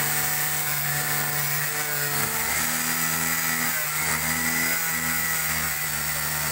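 Handheld angle grinder with a cutting disc cutting through a 5 mm acrylic sheet, the motor running steadily over a gritty hiss. The motor's note shifts about two seconds in and again around four seconds in as the disc bites into the plastic.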